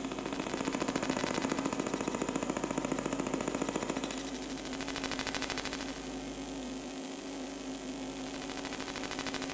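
Electromagnetic interference picked up by an Electro Pickup induction coil held against an illuminated map panel: an electrical buzz with a steady low hum and a high whine, pulsing rapidly. The pulsing eases about four seconds in.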